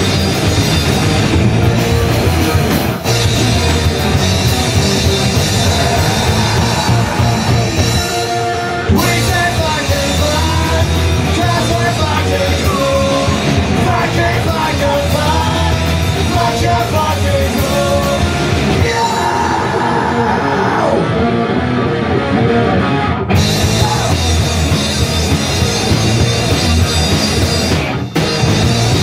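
Punk rock band playing live: electric guitars, bass guitar and drum kit, loud and dense, with a sung vocal line through the middle stretch.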